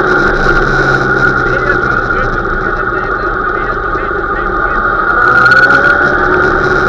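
Motorcycle engine running steadily at low revs, around 2,500–3,000 rpm, heard from the rider's seat while cruising. Its pitch sags a little and then starts to climb again near the end.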